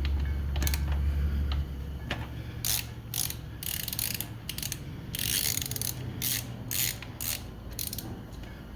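Socket ratchet clicking in a run of short bursts as it is swung back and forth, undoing a 12 mm brake caliper bolt on a motorcycle's rear wheel.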